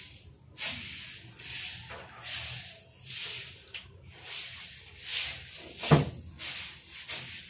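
Cloth rubbing and brushing against the microphone in repeated scratchy strokes, with a single knock about six seconds in.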